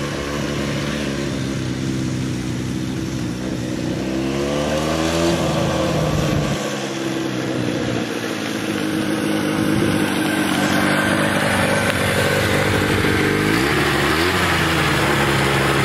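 1966 Honda CL160's small parallel-twin four-stroke engine running under way, rising in pitch as it accelerates about four to five seconds in, settling, then revving briefly and dropping back near the end. The carburettors are freshly rebuilt; the rider says it still hesitates when opened up and probably just needs adjustment.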